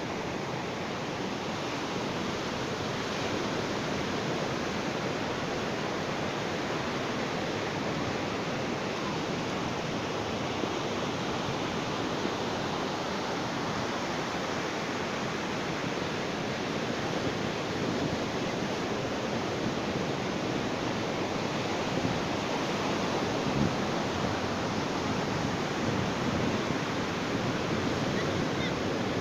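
Ocean surf washing on a beach: a steady, unbroken rush of waves.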